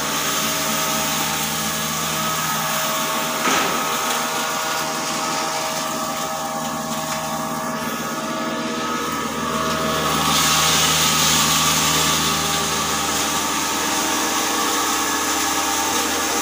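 Maize crushing machine, a cutter driven by a belt from a 10 HP electric motor, running with a steady hum and whine. About ten seconds in it grows louder and hissier as maize poured from a sack goes into the hopper and is crushed. A single sharp knock about three and a half seconds in.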